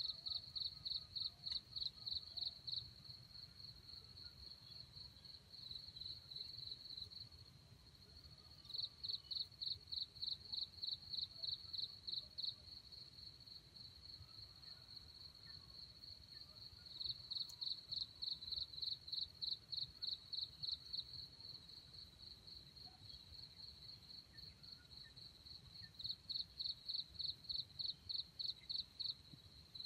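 An insect calling: a steady high trill, broken every several seconds by bouts of louder, evenly pulsed chirps at about four a second, each bout lasting three or four seconds.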